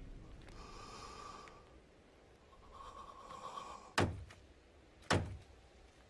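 Two heavy hammer blows driving an iron nail into a wooden cross, about a second apart near the end. Before them a faint, high held tone rises and fades twice.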